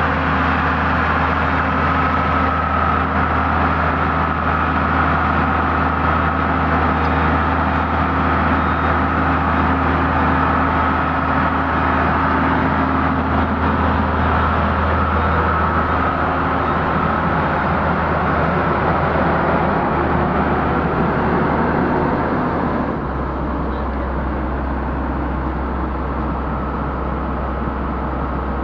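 Hydraulic excavator's diesel engine running steadily at close range. A few seconds before the end it settles to a lower, quieter note, as if throttled down.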